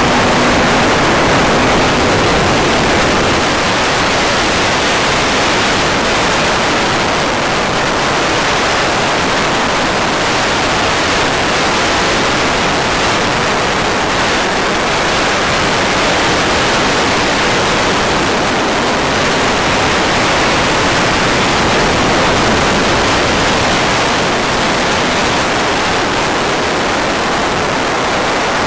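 Steady, even hiss on the RC plane's FPV audio feed. A faint hum from the plane's electric motor fades out about a second in as the motor is throttled back; from then on the plane climbs with the motor drawing almost no current.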